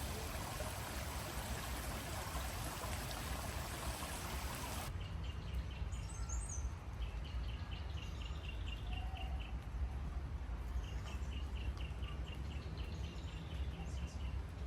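Stream water rushing in a steady hiss that cuts off abruptly about five seconds in. After that, quieter surroundings with a bird calling in quick runs of short chirps, twice, and a brief higher call from another bird.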